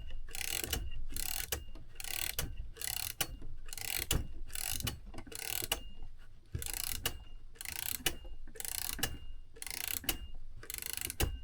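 Seth Thomas clock movement's mainspring being wound up with a key: the click and ratchet wheel clatter in repeated short strokes about twice a second, with a faint metallic ring, as the spring is wound toward its Geneva stop.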